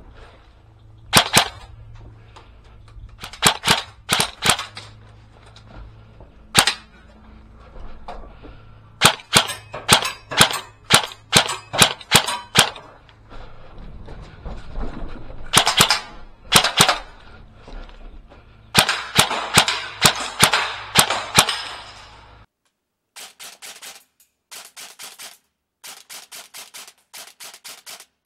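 ICS M.A.R.S. airsoft electric rifle firing: single sharp shots and quick strings of shots. About two-thirds in, a run of short full-auto bursts, about one a second.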